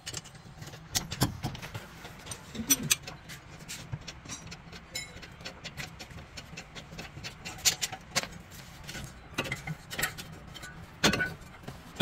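Irregular light metallic clicks and taps as hands work the slide-pin bolt and parts of a Toyota Corolla's front brake caliper during a brake pad change.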